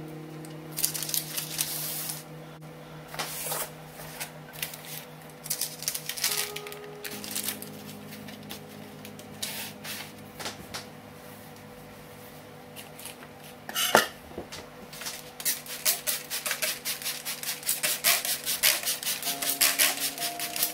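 Soft background music of long held low notes, with spells of rustling and rubbing from baking paper and a cloth kitchen towel being handled. One sharp knock comes about two-thirds of the way through, and the rustling is thickest near the end.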